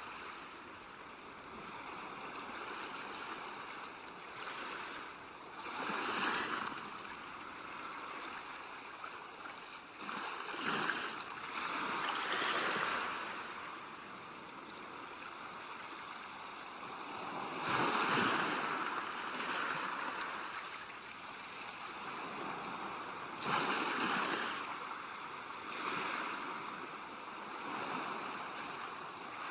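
Ocean waves washing in and breaking, a surge every five or six seconds over a steady wash of water.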